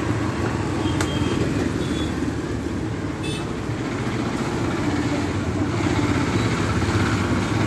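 Road traffic going past, mostly scooters and motorcycles with some cars, a steady engine hum throughout, with a single click about a second in.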